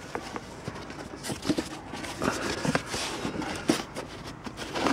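Scattered light knocks, clicks and rubbing as a hand works over the plastic air-intake housing and engine cover, feeling for whatever still holds the filter box in place.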